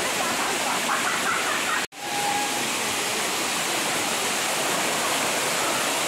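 Waterfall pouring over a rock overhang and splashing onto rocks and a shallow pool: a steady rushing hiss. It cuts out for an instant about two seconds in.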